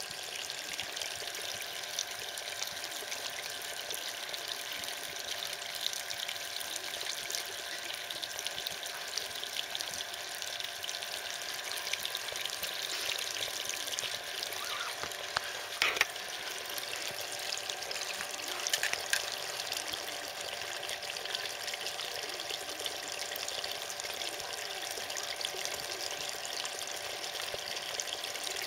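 Water trickling and running steadily out of a small pond, a continuous fine crackling hiss, with one short louder sound about halfway through.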